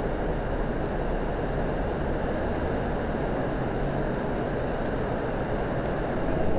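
Heavy rain falling on a street, a steady rushing noise.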